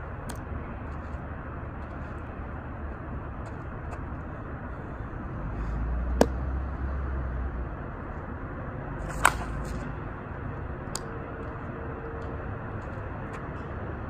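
Monsta Athletics Daisy Cutter 26 oz slowpitch softball bat hitting softballs: two sharp cracks, about six seconds in and again about three seconds later, over a steady background hiss.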